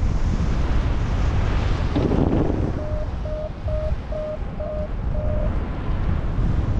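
Steady wind rush on the microphone of a paraglider in flight. In the middle comes a run of six short, even beeps of one pitch from the harness-mounted variometer.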